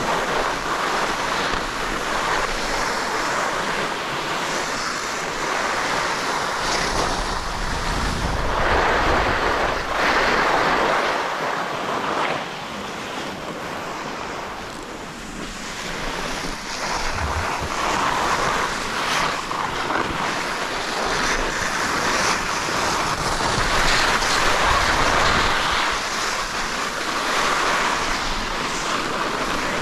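Wind rushing over the microphone during a downhill ski run, a steady noise that swells and fades every few seconds and eases off for a few seconds about midway.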